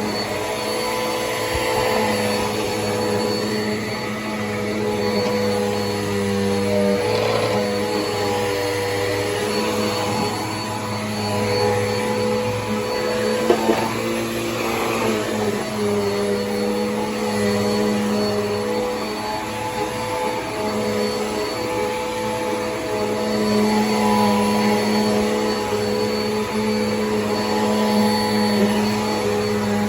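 Bissell PowerForce Helix vacuum cleaner running steadily, its motor hum shifting slightly in pitch now and then as the airflow changes. A brief knock about halfway through.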